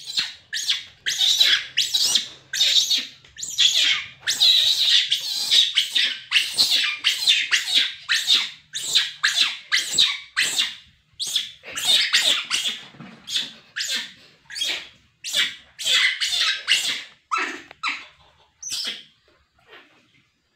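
Baby monkey screaming and crying in a rapid string of shrill squeals, about two a second, thinning out near the end: an infant's distress and anger cries.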